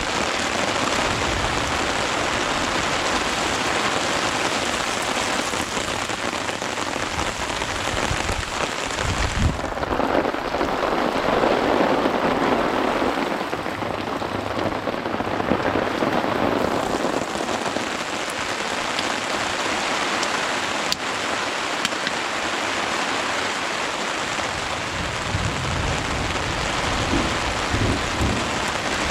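Steady rain falling in a thunderstorm, with a louder, lower swell from about ten to seventeen seconds in.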